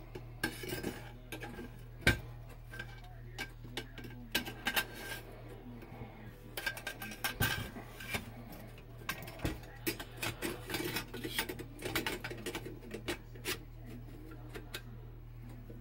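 17-inch free-float handguard being slid over an AR bull barrel onto the steel barrel nut: scattered light metallic clicks, clinks and scrapes of metal on metal, with one sharper knock about two seconds in.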